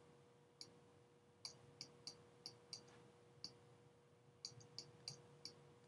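Faint, sharp clicks of a stylus tapping on a tablet's writing surface as an equation is handwritten, about a dozen at an uneven pace, over a faint steady hum.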